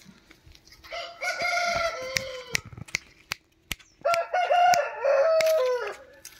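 Gamecock (fighting rooster) crowing twice, each crow lasting about two seconds and dropping in pitch at the end.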